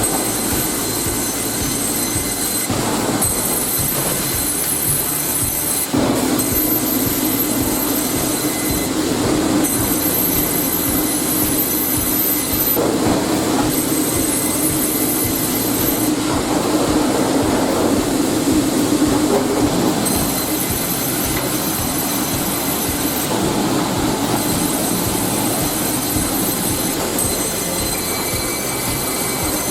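Wood-cutting saw machinery running with a steady mechanical noise and a high-pitched whine that breaks off and resumes every few seconds.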